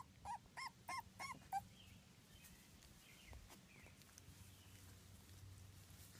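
Two-week-old Labrador puppy squeaking five times in quick succession, each squeak a short high note that rises and falls in pitch.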